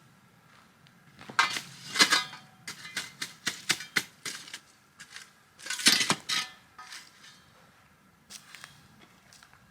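Clattering and clinking of objects being handled and set down: a run of sharp knocks and clinks starting about a second in, and a couple more near the end.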